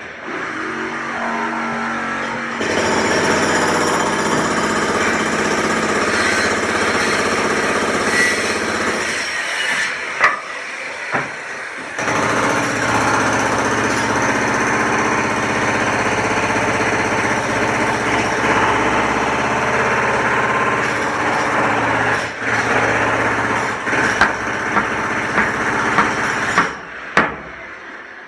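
Construction-site machinery or a power tool running loudly with a dense rattle, in two long stretches with a short break about ten seconds in. A few sharp knocks follow near the end.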